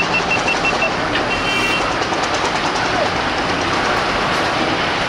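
Loud, steady rumble of passing vehicles, with a quick run of high beeps at the start and a short high horn toot about a second and a half in.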